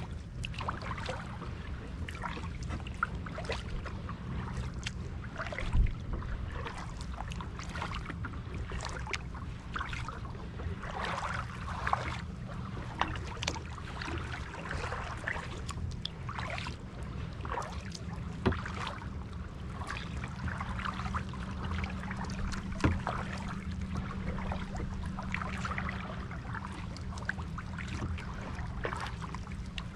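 Kayak paddle strokes: water splashing and dripping off the paddle blades in an uneven rhythm, with a few sharp knocks, the loudest about six seconds in, over a steady low rumble.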